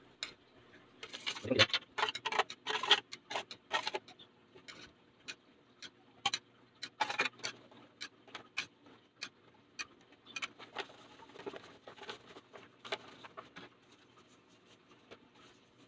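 Irregular light clinks and taps of a metal spoon and small metal baking tins as melted butter is spread in the tins to grease them.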